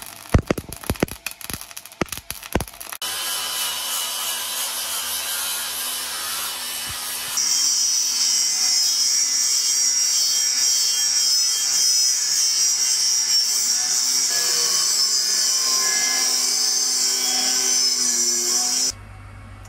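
A few seconds of crackling MIG welding on a steel frame. Then an angle grinder with a cut-off disc cuts through a steel bar: a steady, harsh, high grinding that gets louder and higher about a third of the way in and stops abruptly near the end.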